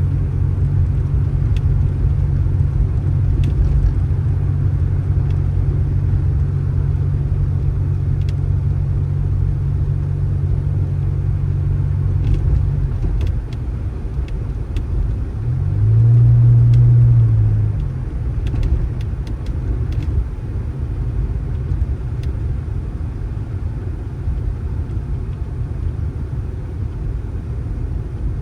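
A vehicle's engine running with a steady low rumble. About halfway through the steady hum drops away, and a few seconds later a louder hum briefly rises and falls.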